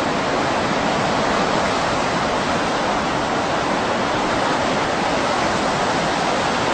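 Steady, loud roar of heavy storm surf breaking and churning.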